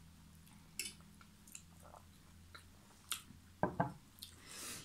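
Quiet eating sounds at a table: a few light clicks of a fork against a serving dish, and chewing, with a short soft hiss near the end.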